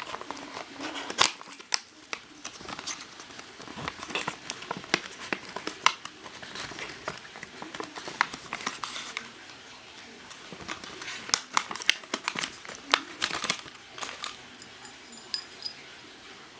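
Cardboard yoyo box and its packaging being handled and opened by hand: irregular crinkling, scraping and sharp clicks of paperboard. The handling falls quieter for the last couple of seconds.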